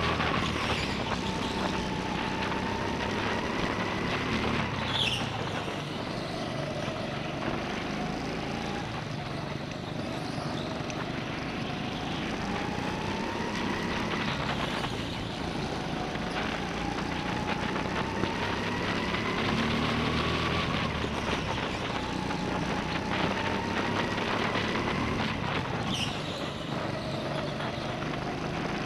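Go-kart engine running under racing load, heard from on board the kart. Its pitch rises and falls every several seconds as the kart speeds up and slows. Two brief high squeaks come about five seconds in and near the end.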